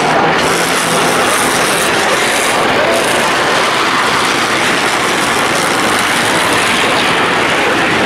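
A pack of stock race cars running together on a short oval, their engines blending into one loud, steady din.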